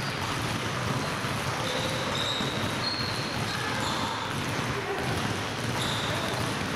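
Many basketballs dribbled at once on a hardwood gym floor: a dense, irregular patter of bounces with no single rhythm. Short, high sneaker squeaks cut in now and then.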